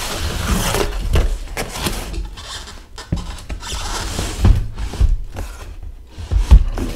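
Cardboard box flaps being pulled open and folded back by hand: scraping and rustling of cardboard, with several knocks and dull thumps against the box, the loudest near the middle and near the end.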